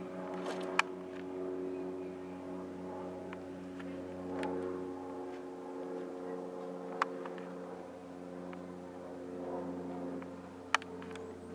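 A steady mechanical hum of several even low tones, with three sharp clicks: about a second in, about seven seconds in and near the end.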